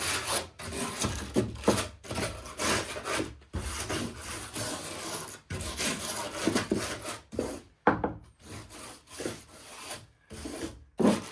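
A hand tool rasping and rubbing on the wood of an old door in quick repeated strokes, with short pauses: surface preparation during wood repair, before filling.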